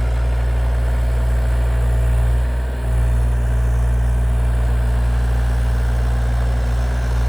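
Excavator's diesel engine running steadily with a deep, even drone while it plows snow, dipping briefly about two and a half seconds in.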